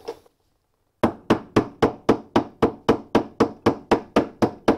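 Nylon hammer tapping repeatedly on the drive shaft of a Fisher & Paykel direct drive washing machine, about four even blows a second, to drive the drum and shaft out. The blows start about a second in.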